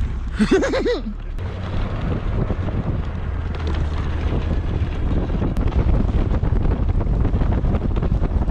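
A short shout about half a second in, then wind buffeting an action camera's microphone as a steady low rumble while it moves.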